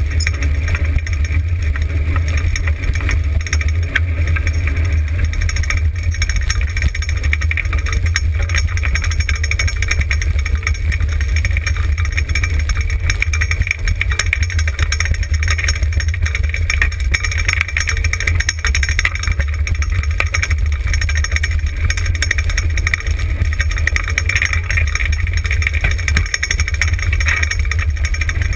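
Steady wind rush on a rig-mounted camera's microphone, with the rattle and rumble of a dryland dog-sled rig rolling fast over a dirt trail.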